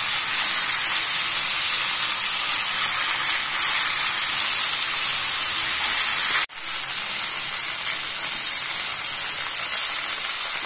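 Sea bream and sautéed vegetables sizzling steadily in oil in a frying pan over a gas flame. About six and a half seconds in, the sound cuts off abruptly and resumes a little quieter.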